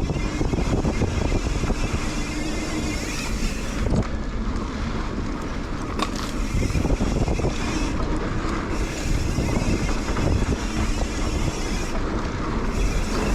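Mountain bike ride on a dirt trail: steady wind rush and rumble on the camera microphone with tyre noise, plus a few sharp knocks and rattles from the bike over rough ground.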